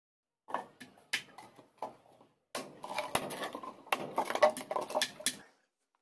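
Small steel nails clinking and rattling on the top of a plywood speaker box as they are scattered and picked through by hand. A few separate knocks and clicks come first, then a denser clatter of nails from about halfway in.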